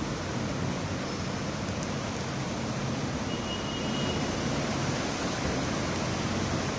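Steady rushing of floodwater in a waterlogged road underpass, with a motor scooter splashing through the water partway in.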